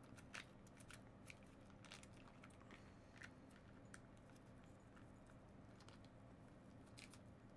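Near silence: quiet room tone with a few faint, scattered clicks.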